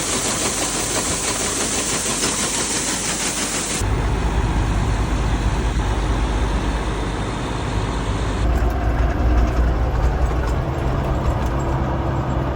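Tractor engine running steadily, in a few short clips cut together. The first clip, about four seconds long, has a strong hiss over the engine; the rest is a steady low engine hum.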